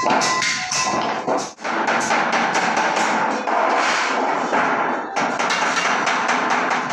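Rapid hammering on sheet metal, a dense run of quick ringing strikes with a short break about one and a half seconds in.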